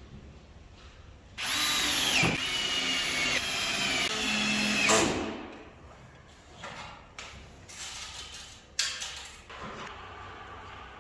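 Power drill running for about three and a half seconds, its high whine dropping in pitch as it comes under load. It is followed by lighter clatter and a sharp click.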